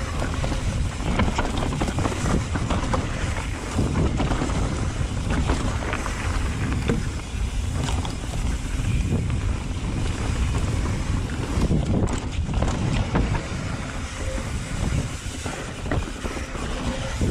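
Wind noise on an action camera's microphone while a mountain bike rides fast down a dirt trail. Tyre roll is mixed in, along with frequent short knocks and rattles as the bike goes over roots and bumps.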